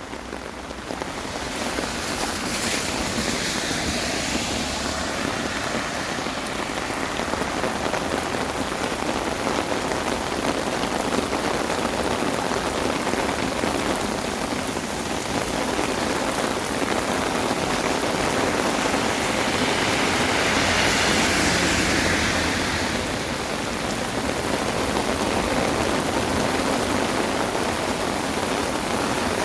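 Heavy rain falling steadily, swelling louder for a couple of seconds about two-thirds of the way through.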